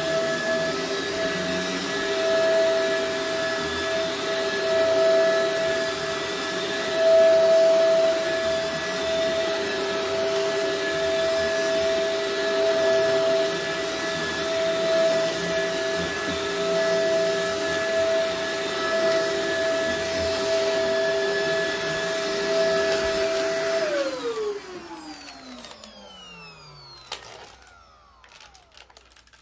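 Shark upright vacuum cleaner running steadily with a constant motor whine while it is pushed over an area rug. About six seconds before the end it is switched off and the motor winds down in a falling whine, followed by a single click.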